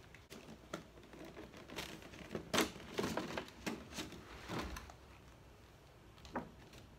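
A cardboard toy box and its clear plastic packaging being opened and handled: irregular rustling, crinkling and light knocks, with the sharpest knock about two and a half seconds in and a quieter stretch near the end.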